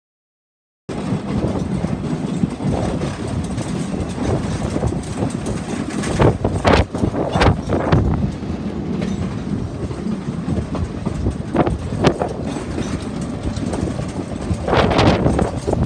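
Sky Railway passenger train running on the rails: a steady rumble starting about a second in, broken by sharp clacks of the wheels, with a louder burst of noise near the end.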